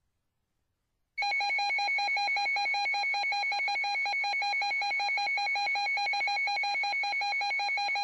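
Weather radio receiver's alert alarm starting about a second in: a loud, rapid beeping at one steady pitch. It signals that a Severe Thunderstorm Warning has been received.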